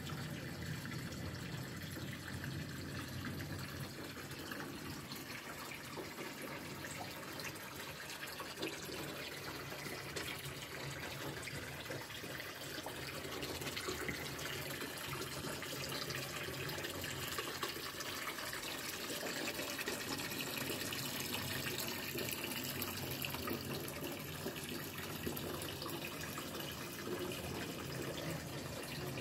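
Steady trickling and bubbling of water stirred by a small submersible pump in a shallow glass basin.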